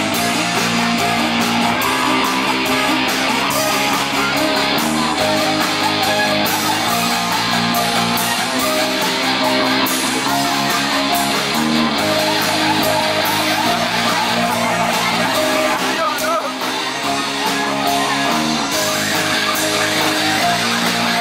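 A live band playing with electric guitars over bass guitar and drums.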